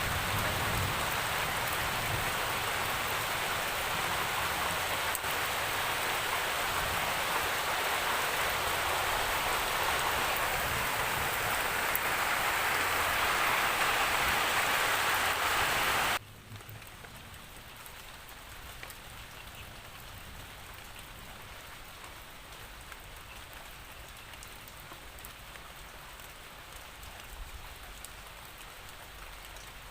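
Steady rain falling, an even hiss of drops on a surface. A little past halfway it drops suddenly to a much softer, lighter rain that continues steadily.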